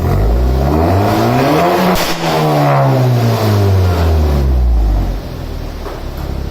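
Exhaust of a MK6 Volkswagen with a catless downpipe and a Vibrant 1792 bottle resonator, revving up once for about two seconds and falling back to idle. A sharp crack at the top of the rev, as the throttle closes, fits the crackle tune.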